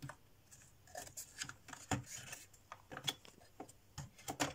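Laser-cut plywood model parts being handled and pressed together: scattered light clicks and knocks of wood on wood, with some faint scraping.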